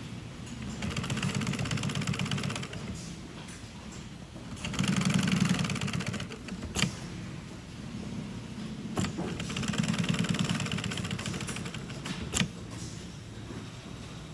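Sewing machine stitching seams in nylon, running in several short bursts of a few seconds each with a fast, even stitch rhythm, stopping and starting between them, with a few sharp clicks in the pauses.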